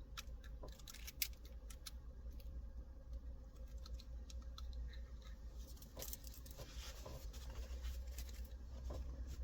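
Faint, scattered plastic clicks and scratching as the plastic frame is worked out of a car's gear-lever gaiter by hand.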